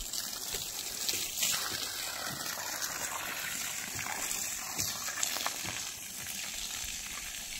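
Water from a garden hose jetting out and splashing onto wet soil, a steady hiss.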